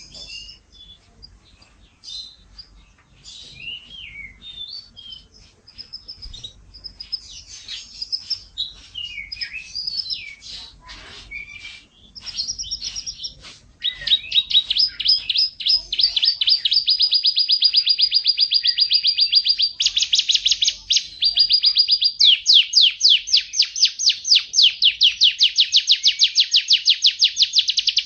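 Domestic canary singing: scattered chirps and short whistled phrases at first, then from about halfway a loud, fast trill of rapidly repeated notes that runs on, shifting in speed and pitch a couple of times.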